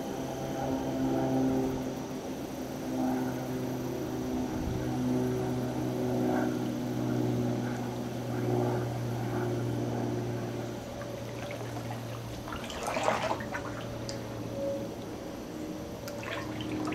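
Kayak paddle strokes splashing and dripping water, with a louder splash about two-thirds of the way through. Under it runs a steady low engine hum that fades out a little past the middle.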